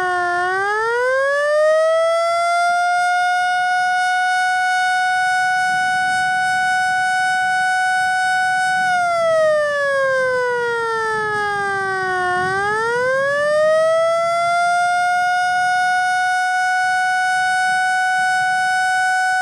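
Federal Signal Model L eight-port electromechanical siren sounding a mock attack signal. Its pitch climbs from a low point to a steady tone, holds for about six seconds and winds down, then climbs and holds again about twelve seconds in.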